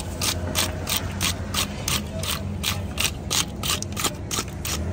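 Quick, rhythmic rasping strokes of a hand scraper stripping the scales off a large catla carp, about four strokes a second.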